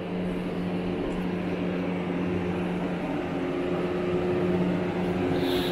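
Steady mechanical drone with a low pitched hum, the hum shifting slightly in pitch about halfway through.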